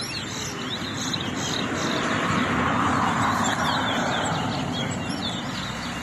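Caged towa-towa finches singing a rapid string of short, high chirps and slurred notes. A passing vehicle's noise swells and fades, loudest about three seconds in.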